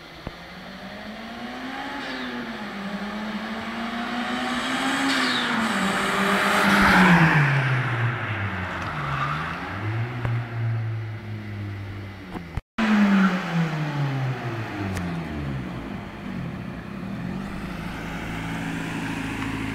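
Turbocharged Honda B16A2 four-cylinder engine in a Honda del Sol accelerating hard past the listener. It is loudest about seven seconds in, with the pitch rising and falling through the gear changes. After a sudden cut, the engine revs drop and settle to a steady low note as the car slows and rolls up.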